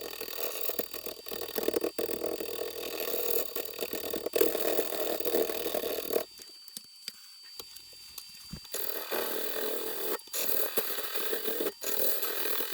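Wood lathe spinning a poplar blank while a turning tool shaves its edge square, a rough shaving noise over a faint steady whine. The cutting stops for about two seconds just past the middle while the lathe keeps turning, then starts again.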